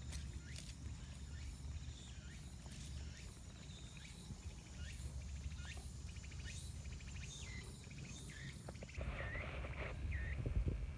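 Outdoor ambience of short, high chirping calls repeating about twice a second over a steady low rumble. About nine seconds in, a louder rustling comes in close to the microphone, with two more curved calls.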